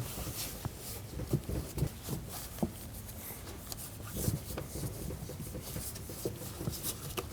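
Faint rubbing and a few soft taps of hands pressing the door's protective seal back onto its adhesive around the edges of the inner door.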